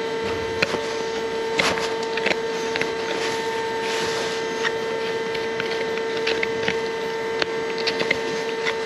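Hoof knife paring horn from a cow's sole in short, uneven scraping cuts, over a steady machine hum.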